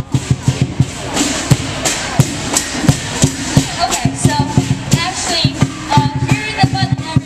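Chinese dragon-dance percussion: a drum beating a fast, uneven rhythm with cymbals clashing over it, and crowd voices mixed in.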